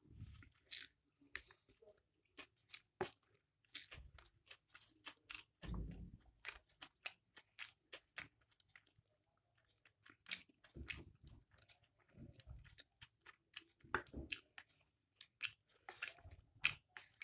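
Close-miked chewing of chow mein noodles with chicken and egg: irregular wet mouth clicks, smacks and soft crunches, with a few low thuds here and there.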